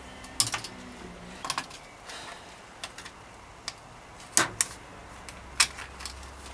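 Plastic bicycle mudguard and its bridge stay being fitted to a bike frame: a scatter of sharp clicks and knocks as the guard is handled and pushed against the frame, the loudest about four and a half seconds in.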